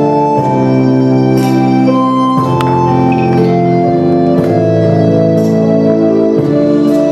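Organ music playing slow, held chords that change about every two seconds.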